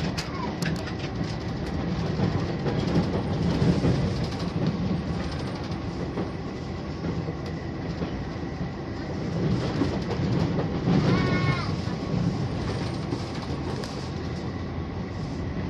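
Cabin running noise of a HOT7000 series diesel multiple unit under way: engine drone and wheels on the rails, rising and falling slightly. A brief high-pitched tone sounds about eleven seconds in.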